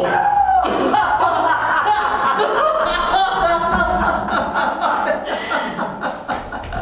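A man and a woman laughing together in one long, unbroken bout.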